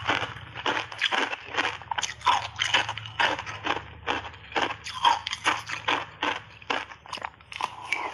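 Shaved ice coated in matcha milk powder crunching as it is chewed, in rapid, irregular crunches about four a second, close to a clip-on microphone.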